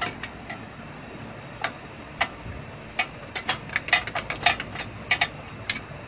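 Screwdriver undoing the small screws that hold a desktop computer's USB port board: a run of sharp small clicks, scattered at first, then coming quickly for a couple of seconds from about three seconds in.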